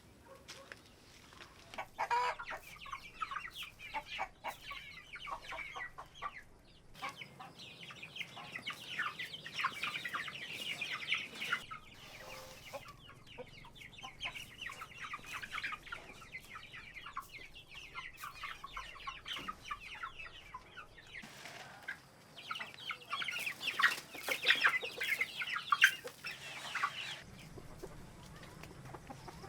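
Chickens clucking in bursts of rapid, overlapping clucks, loudest a few seconds before the end.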